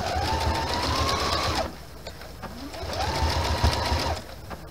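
Electric sewing machine stitching around an appliqué in two short runs, its motor whine rising as it picks up speed and then holding steady over a fast needle rattle. It stops for about a second between the runs while the fabric is turned.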